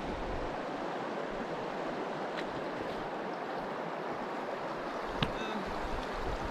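A river flowing, a steady even rush of water, with one faint tick about five seconds in.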